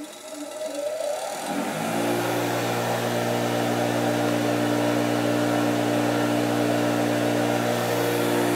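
6-inch bench grinder motor spinning up after being switched on, rising in pitch over about the first two seconds, then running at a steady speed with an even hum.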